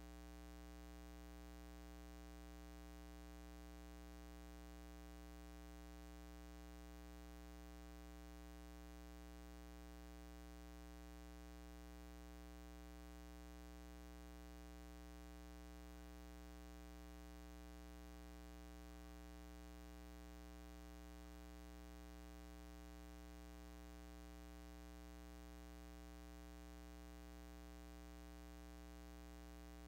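Steady low electrical mains hum, an unchanging buzz with nothing else heard over it.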